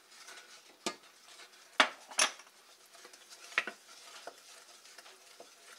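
Wooden spoon stirring flour into melted butter in a stainless steel saucepan, knocking against the pan in a handful of short sharp clicks, the loudest about two seconds in.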